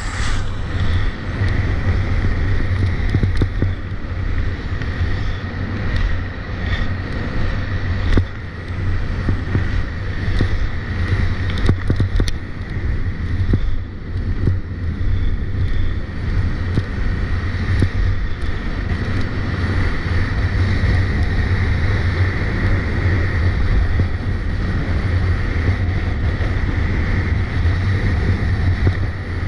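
Wind buffeting the microphone at skiing speed, over the steady hiss and scrape of skis carving on icy snow.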